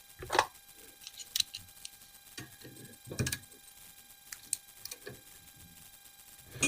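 Scattered small metal clicks and knocks of a Torx key and AR-15 parts being handled while checking the gas block screws, with the two loudest knocks about half a second in and about three seconds in.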